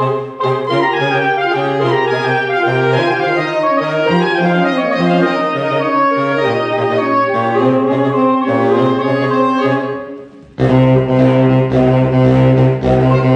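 Saxophone quartet of soprano, alto, tenor and baritone saxophones playing sustained, overlapping chords. About ten seconds in the sound briefly falls away, then all four come back in suddenly and loudly, with strong low baritone notes underneath.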